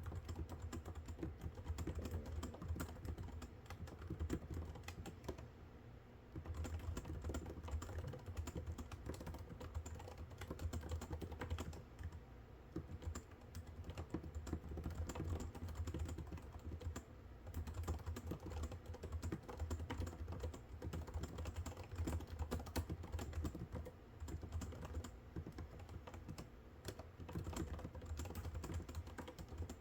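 Fast typing on a computer keyboard, a dense run of key clicks in bursts of several seconds with brief pauses between them, over a low steady hum.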